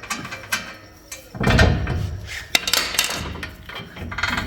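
Metal tools clanking and knocking on the truck's front suspension, with several sharp clicks, while the tie rod end is being worked loose from the steering knuckle.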